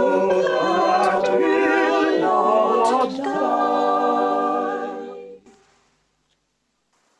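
A church choir singing unaccompanied, ending on a long held chord that fades away about five seconds in.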